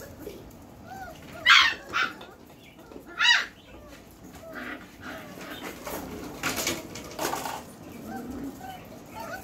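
A litter of four-week-old Belgian Malinois puppies yipping and barking in short, high-pitched calls while they play, with smaller squeals between them; the three loudest yips come between about one and a half and three and a half seconds in.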